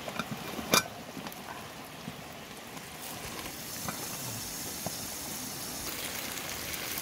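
A lidded pot of chicken feet cooking over an open wood fire: a steady hiss with a few crackles that grows stronger about halfway through. A sharp knock comes under a second in, as sticks are pushed into the fire under the pot.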